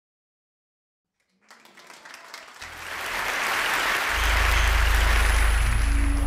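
Audience applauding in a large hall, starting about a second and a half in and swelling to full, steady applause, with a steady low hum joining about four seconds in.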